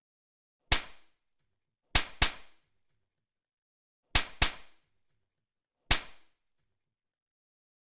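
Six sharp smack-like cracks, each with a short echoing tail, set in dead silence: one, then two quick pairs, then one more. They sound like comic hit sound effects.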